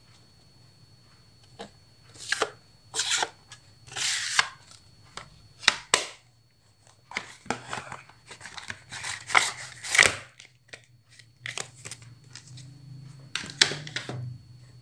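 Makeup palettes, compacts and packaging being handled and set down on a tabletop: irregular clatters, knocks and rustles that begin about a second and a half in, over a faint steady hum.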